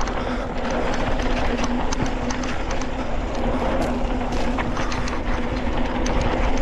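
Mountain bike descending a dirt trail: wind rushing over the microphone and tyres rolling on the ground, with a continuous rattle of sharp clicks and knocks from the bike over rough terrain and a steady low hum underneath.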